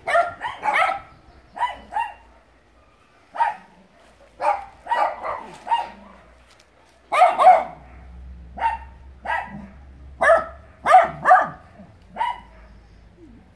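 Dogs barking repeatedly, about twenty sharp barks in irregular bunches.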